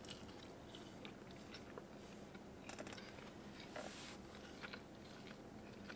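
Faint biting and chewing of a slice of pizza: soft crunches and small mouth clicks scattered through.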